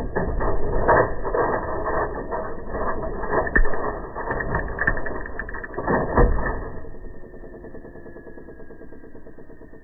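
Mechanism of a vintage National Model 1500 cash register clattering and clicking, with ratchet-like clicks, for about seven seconds, then dying down to a quieter sound.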